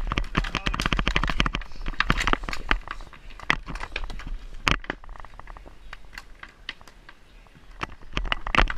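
Clatter of roller hockey play at close range: rapid clacks and knocks of sticks, puck and inline skates on a wooden rink floor, busiest in the first few seconds, with one sharp knock about five seconds in, then quieter before picking up again near the end.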